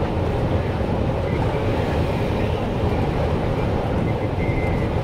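Steady engine and road noise inside a bus travelling at motorway speed, an even low-pitched drone with tyre hiss and no distinct events.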